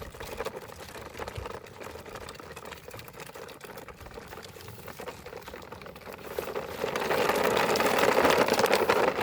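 A battery-powered toy vehicle's small electric motor and gears whirring steadily. The whir grows much louder from about two-thirds of the way in.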